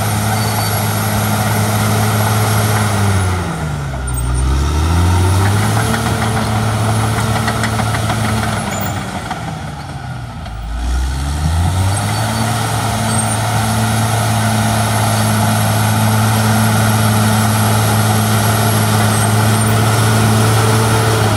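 Caterpillar D6R XL bulldozer's diesel engine working as the blade pushes loose dirt. The engine note drops sharply twice, about four seconds in and again around ten seconds, then climbs back up and runs steady and high.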